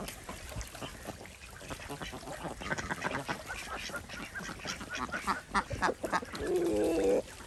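A flock of domestic ducks quacking, with a quick run of short calls in the middle and one longer, louder call near the end.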